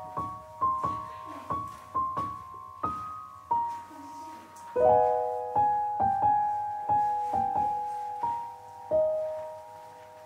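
Background piano music: a slow melody of single struck notes, each ringing and fading, with a fuller chord about five seconds in.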